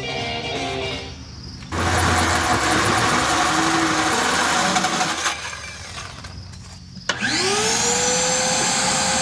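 Power drill with a hole saw boring through the van's wooden flooring and metal floor: a run of cutting noise from about two seconds in, a lull, then about seven seconds in the drill spins up with a rising whine and runs steadily.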